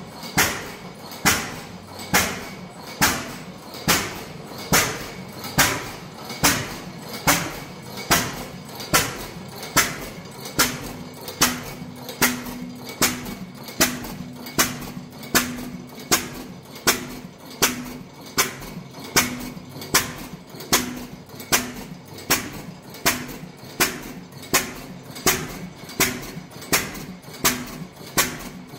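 15 hp Fairbanks Morse stationary engine running slowly, each firing a sharp exhaust bang at an even beat of a little more than one per second.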